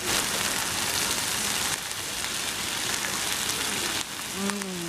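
Beef and vegetables sizzling on a hot grill pan over a portable gas burner: a steady frying hiss, a little louder for the first two seconds.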